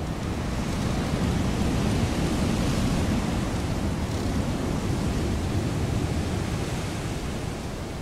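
Wind blowing as a steady rushing noise, swelling into a stronger gust about a second in and easing off near the end.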